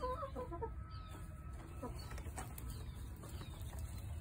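Domestic hens making soft, wavering clucks, mostly in the first second and once more about two seconds in, over a steady low rumble.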